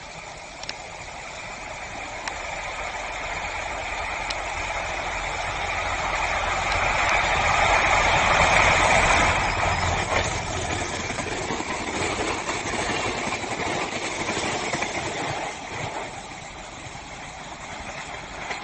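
Train approaching and passing, a steady rumble that grows louder to a peak about nine seconds in, then eases off and fades.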